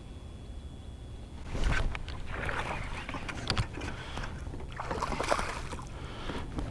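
A sharp thump about a second and a half in, then a hooked bass splashing at the water's surface as it is fought and swung out of the water.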